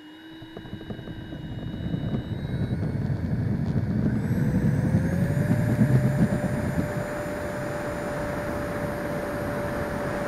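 Electric ducted fan of a Freewing L-39 Albatros RC jet spooling up for take-off, its whine rising in pitch about four seconds in and then holding steady, picked up by the onboard camera. Under it is the rumble of the landing gear rolling over rough runway, which eases about seven seconds in as the jet lifts off.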